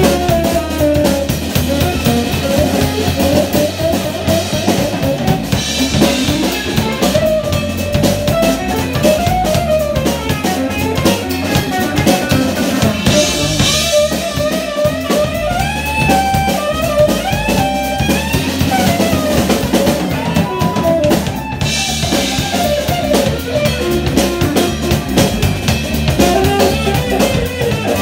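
Live band music: a tenor saxophone plays a solo line with pitch slides over electric bass, drum kit and electric guitar.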